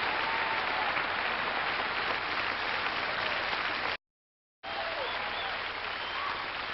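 A large crowd applauding steadily. The sound cuts out completely for about half a second a little past the middle, then the applause comes back.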